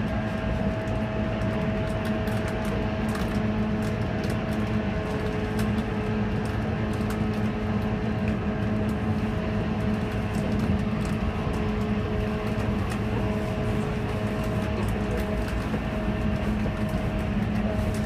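JR 185 series electric train running at a steady speed, heard inside the passenger car: a loud, steady traction-motor hum with a few held tones over the noise of wheels on the track.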